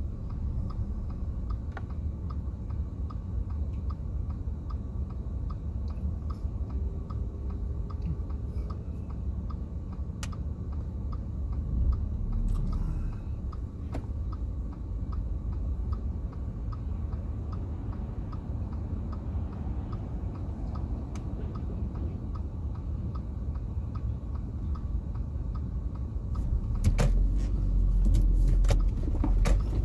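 Road and engine noise inside a moving car's cabin: a steady low rumble with a few faint clicks. The rumble grows louder near the end.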